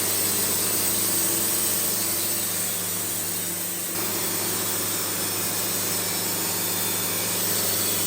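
Portable band sawmill running steadily, its engine humming while the band blade saws through a cherry log; the sound shifts slightly about four seconds in.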